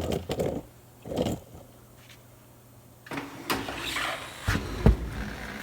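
Tire machine's pneumatic bead breaker working: two short bursts of air as the foot pedal is worked, then a longer stretch of hissing and creaking from about three seconds in as the shovel squeezes the tire. A heavy thump near the end is the tire bead breaking loose from the rim.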